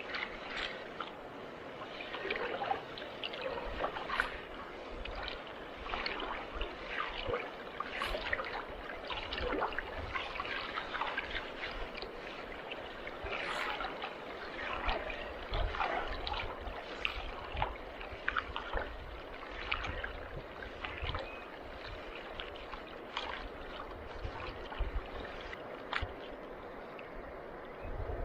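Water splashing and sloshing irregularly as a gold prospector works in shallow river water, with occasional low thumps.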